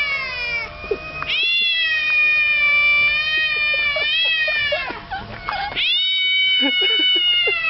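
Cats yowling threat calls at each other in a standoff: a long, drawn-out wavering howl from about a second in to nearly five seconds, a few short cries, then another long howl starting about six seconds in.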